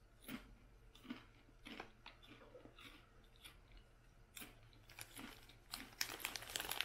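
A person crunching and chewing Ruffles ridged potato chips, with short crisp crackles coming every half second or so. Near the end comes a louder, denser rustle as the chip bag is lifted.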